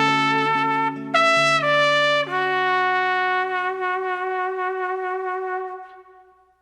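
Instrumental close of a song: a sustained melody line of a few long notes over held low chords, ending on one long note with vibrato that fades out about six seconds in.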